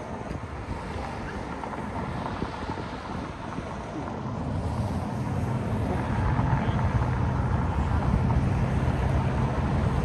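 Outdoor street ambience dominated by wind rumbling on the microphone, growing louder from about halfway through.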